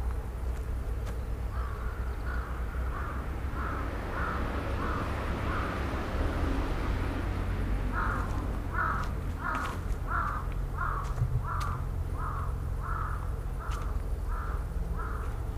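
A crow cawing over and over, one call about every half second, in two long runs: one in the first few seconds and a louder one through the second half.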